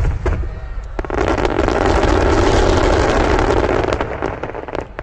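Aerial fireworks going off in a dense barrage: many bursts and crackles in quick succession, swelling into a loud, continuous crackling rumble about a second in that dies away near the end.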